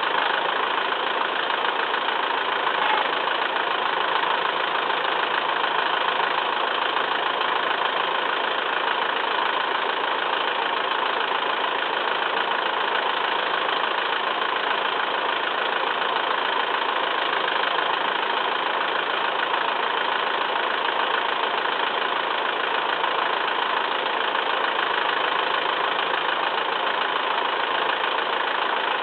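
Massey Ferguson 2635 tractor's diesel engine running steadily at an even speed.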